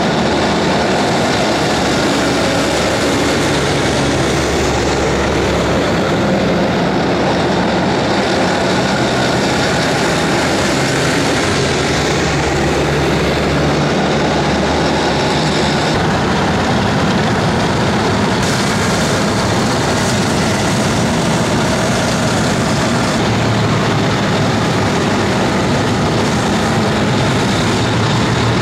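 Kurganets-25 tracked armoured vehicles driving past in a column: a loud, steady din of engines and tracks.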